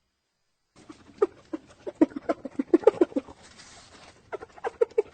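Hyena giggling: a rapid run of short, pitched staccato calls, about three or four a second. They start about a second in, break off briefly past the middle, and resume near the end.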